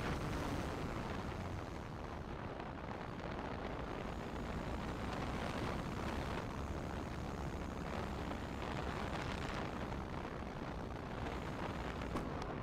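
Steady rushing wind noise buffeting the microphone of a camera mounted on top of the wing of an E-flite Cessna 150 Carbon-Z RC plane on its landing approach and rollout, with a brief knock near the end.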